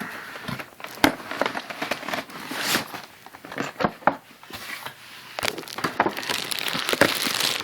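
Packaging being handled and pulled open: irregular rustling and crinkling, with scattered sharp knocks and clicks, the strongest about a second in.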